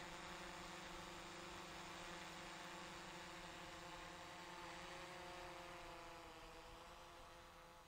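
Quadcopter drone's propellers buzzing faintly with a steady hum of several pitches, which drop slightly and fade from about six seconds in as the drone flies away.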